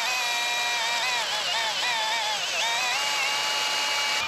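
Background music: a high melody line of held notes that waver and slide between pitches, over a steady hiss.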